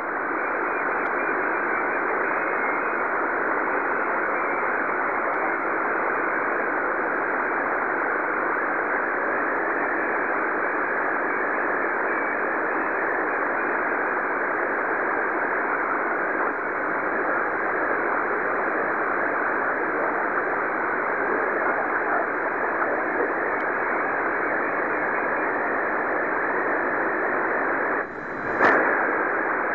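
Shortwave receiver on the 40-metre band hissing steadily with band noise through its speaker, a weak station's signal too low to make out in it. About two seconds before the end the noise drops out for a moment and comes back with a short burst.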